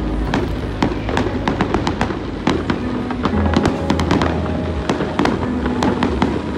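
Aerial fireworks going off in rapid succession: a dense stream of sharp crackles and pops from bursting shells, with music playing underneath.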